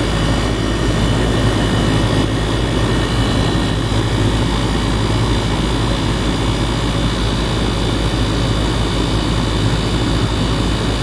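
2018 Goodman 2.5-ton gas pack running steadily in cooling mode, heard close to the compressor: an even low hum from the compressor under the rush of the condenser fan.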